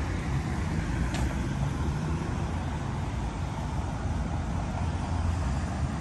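Steady outdoor background noise: an even low rumble with a hiss above it, with no single source standing out. There is a faint, brief high tick about a second in.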